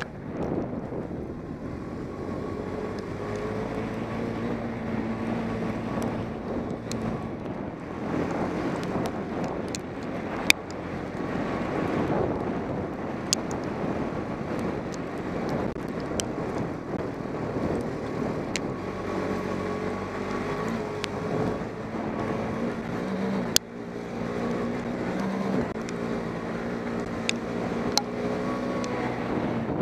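ATV engine running while the quad is ridden along a rough, muddy trail, its pitch wavering up and down with the throttle, over wind noise on the microphone. A few sharp knocks stand out here and there.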